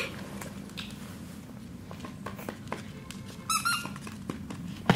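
A French bulldog puppy chewing a squeaky plush toy, which gives one short, high, wavering squeak about three and a half seconds in, with a few light taps in between.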